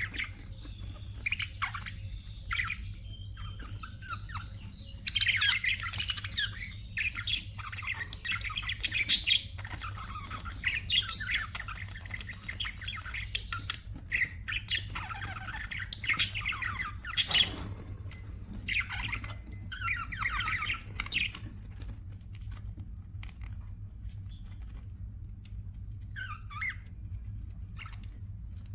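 Budgerigars chattering: quick, dense chirps, warbles and short squawks, busiest through the middle and thinning out near the end, over a steady low hum.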